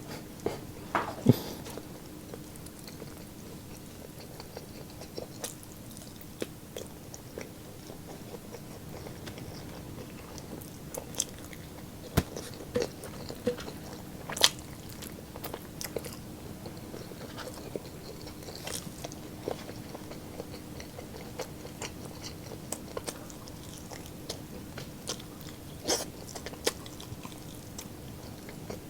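Close-miked eating of a meal of roast pork ribs, roast chicken and rice: chewing with scattered sharp crunches and clicks, over a faint steady hum.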